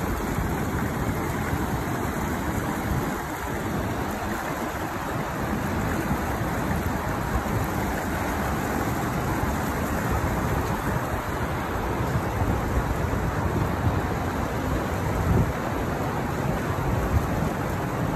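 Steady rushing of a fast-flowing river current, with wind buffeting the microphone in uneven low rumbles.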